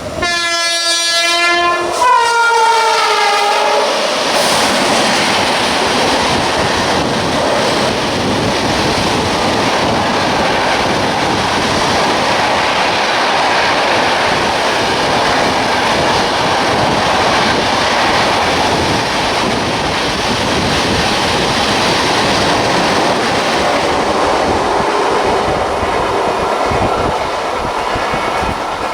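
Train horn of an express passing at over 100 km/h. Two blasts, the second falling in pitch as the locomotive goes by, then the long rush and clatter of the coaches running through.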